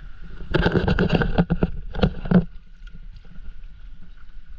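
Paddle strokes splashing in the water beside a stand-up paddleboard, a burst of irregular splashes from about half a second in to about two and a half seconds, then faint water lapping.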